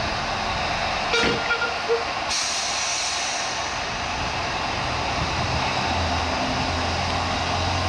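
Narrow-gauge steam tank locomotive moving off, hissing steam. A little after two seconds in there is a sudden burst of hiss that slowly fades, with steam blowing out low around the wheels from the open cylinder drain cocks. There is a brief high tone just over a second in.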